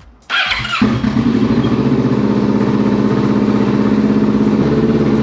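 Kawasaki Vulcan S 650's parallel-twin engine cranked by the electric starter for about half a second, then catching and idling steadily. It starts at once on the newly replaced starter solenoid relay, which had been failing to engage.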